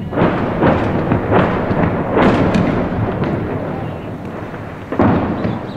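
Heavy gunfire from nearby clashes: a rapid string of echoing shots over the first three seconds, then one more loud report about five seconds in.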